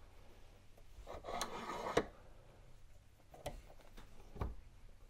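Bench vise being screwed tight to press a new bearing into an aluminium pump housing: a rough grinding stretch of about a second that ends in a sharp metal clack, then two lighter clicks from the vise handle.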